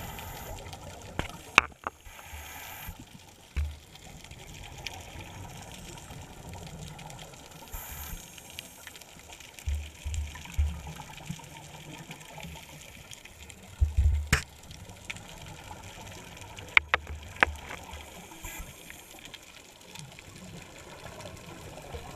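Muffled underwater noise picked up through a GoPro's waterproof housing, with low rumbling bursts every few seconds from a scuba diver's regulator exhaling bubbles, and a few sharp clicks.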